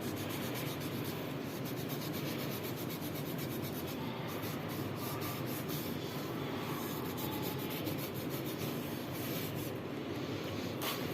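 Cotton wad rubbing steadily over a glazed ceramic plate, scrubbing off a stain.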